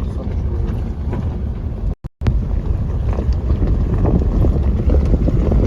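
Wind buffeting the microphone: a loud, steady low rumble that cuts out completely for a moment about two seconds in.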